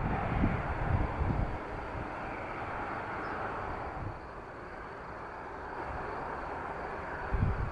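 Jet noise from a Boeing 737-300's two CFM56-3 turbofan engines during takeoff: a steady rushing noise, with low rumbles near the start and near the end.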